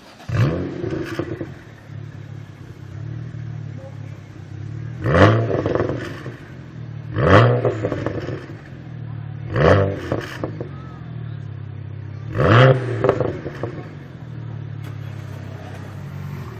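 Tuned BMW 1M Coupe's twin-turbo straight-six, decatted with a lightweight exhaust, idling and blipped five times in quick revs. Each rev drops back to idle with a burst of pops and crackles from the exhaust.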